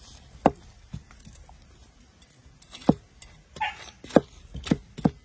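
A cleaver chopping into a fresh bamboo shoot on a wooden slab: about six sharp chops, irregularly spaced.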